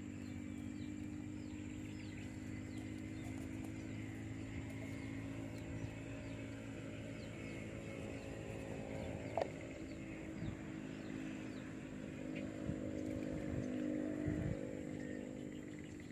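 A distant engine running steadily, a low hum that swells a little near the end. Faint high chirps sound over it, and there is one short sharp tick about nine seconds in.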